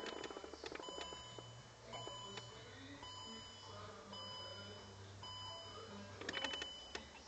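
Electronic warning chime inside a Range Rover beeping steadily about once a second, with a low steady hum underneath.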